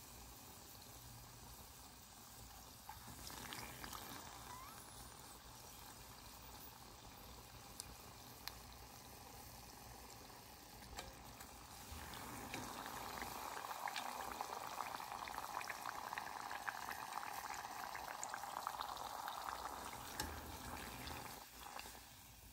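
Food frying in hot fat: a steady sizzle with fine crackles, louder from about halfway through and dropping away just before the end.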